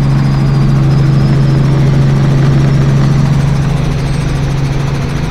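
Helicopter in flight heard from inside its cabin: the rotor and engine make a loud, steady drone with a constant low hum.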